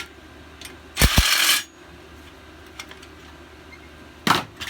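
Metal hand tools and small engine parts clinking and clattering: a longer burst of clatter with a couple of knocks about a second in, and a short clink near the end.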